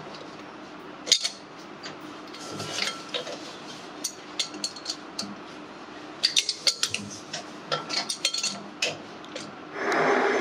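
A spanner clinking and clicking on the nut and steel stepped pulley of a bench pillar drill's spindle as the pulley is tightened: scattered sharp metallic clicks, one loud knock about a second in and quick clusters in the second half. A steady louder noise starts just before the end.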